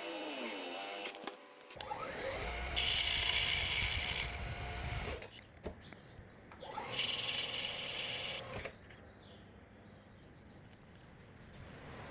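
An electric power tool's motor spinning up and running in two bursts of a few seconds each, the whine rising in pitch as each burst starts, then quieter after.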